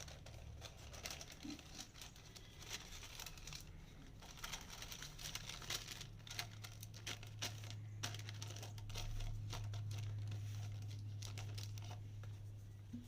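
Butter paper rustling and crinkling in short scrunches as it is fitted and pressed along the sides of a greased cake tin. A low steady hum comes in about halfway through and fades near the end.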